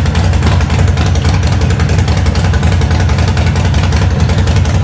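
Harley-Davidson Sportster Seventy-Two's air-cooled 1200 cc V-twin idling steadily, with a deep, even pulse of firing strokes.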